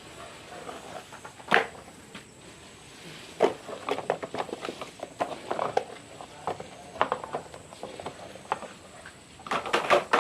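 Plastic toys being handled and knocked together: scattered clicks and clatters, a sharp one about a second and a half in, a run of them from about three and a half seconds, and a dense flurry near the end.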